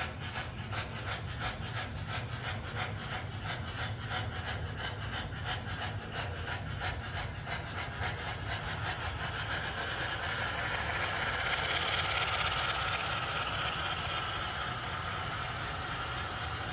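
Three MTH 4-8-4 J Class model steam locomotives running together, their sound systems chuffing at about five chuffs a second over a steady low rumble of the running gear on the track. About halfway through, the chuffs blur into a steady hiss.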